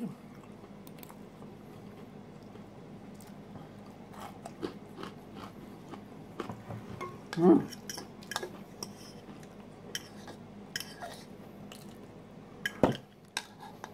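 Eating salad up close: quiet chewing, with a fork clicking against a bowl. There is one short voiced sound from the eater about halfway through and a few sharp clinks of the fork near the end.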